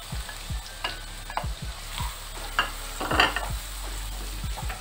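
Chopped onion sizzling in hot oil with garlic and ginger in a non-stick wok, stirred with a wooden spatula, with scattered scrapes and taps against the pan.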